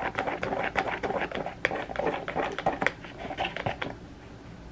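Small wire whisk stirring pancake batter in a plastic measuring jug, clicking and tapping quickly and unevenly against the jug's sides; the clatter eases off about four seconds in.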